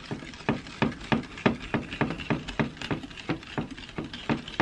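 Wire whisk beating a runny mixture of chocolate, sugar and milk in a ceramic bowl, its wires clicking against the bowl's side about four to five times a second.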